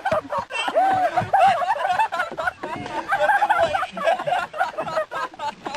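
Several people laughing at once, high-pitched and overlapping.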